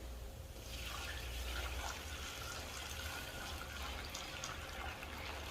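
Water being poured into a pot of fried vegetables, a steady hiss that starts about half a second in.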